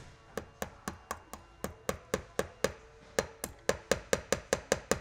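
Magnetic tack hammer tapping a decorative nail head through a hole in nailhead trim, driving it into an upholstered chair. Short metallic taps, sparse and uneven at first, then quicker and louder, about four or five a second by the end.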